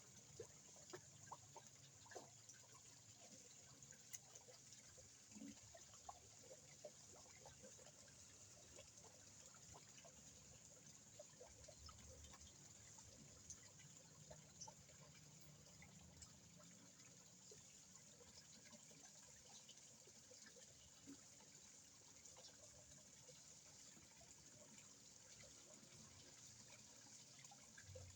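Faint trickling water of a small koi pond, with a few faint sharp ticks and splashes, several of them in the first few seconds.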